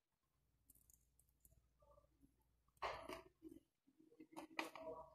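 Quiet eating sounds as crispy fried chicken is pulled apart by hand and eaten, with two short crackly bursts, one about three seconds in and one near the end.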